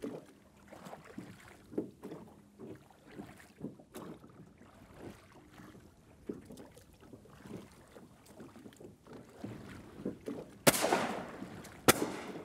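Two shotgun shots near the end, about a second apart, fired at mallards flying over; the first is the louder. Before them, water laps faintly against the small boat's hull.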